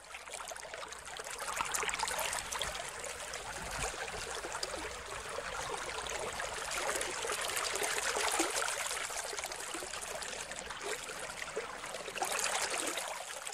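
Steady rushing, splashing noise of running water like a stream, swelling up over the first couple of seconds.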